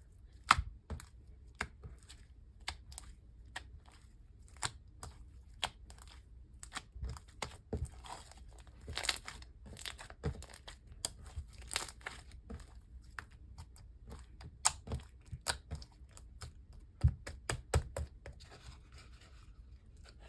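Hands stretching and pressing a very stretchy slime, with many irregular sharp bubble pops, several a second.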